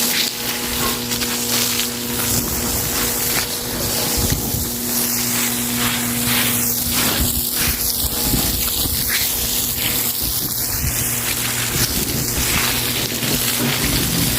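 Stiff broom scrubbing a wet floor in repeated strokes, over a steady hiss, with a low steady hum underneath.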